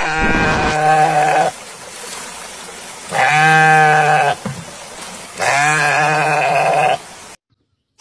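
Sheep bleating three times in long, drawn-out calls of about a second and a half each. Water splashes between the calls as it is poured over the animal.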